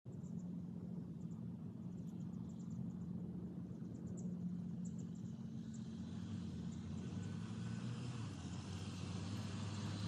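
Jeep Wrangler Rubicon 4xe driving on a dirt forest trail, with a steady low hum throughout.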